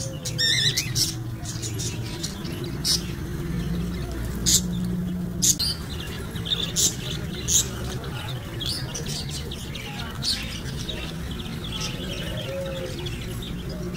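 Caged budgerigars chirping: many short, sharp calls scattered irregularly over a steady low background hum.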